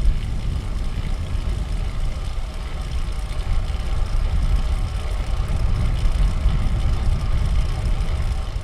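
Wind rumbling and buffeting across the microphone of an action camera on a moving fixed-gear bicycle, with steady road noise underneath.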